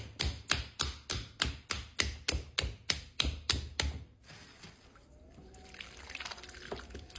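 Hands slapping a lump of wet terracotta clay on the pottery wheel, about three taps a second, stopping about four seconds in; then softer wet sounds of hands working the clay.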